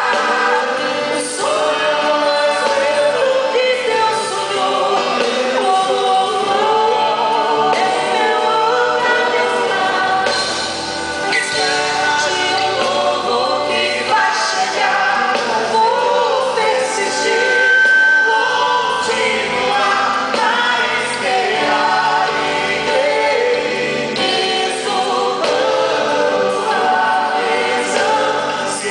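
A man and a woman singing a Christian pop duet live through a PA system, with a band of drums, guitars and violin backing them. A long note is held a little past the middle.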